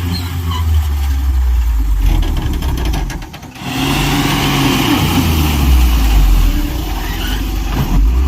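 Heavy diesel engine of earthmoving or truck machinery running and revving, its pitch shifting up and down, with a brief drop in level about three seconds in.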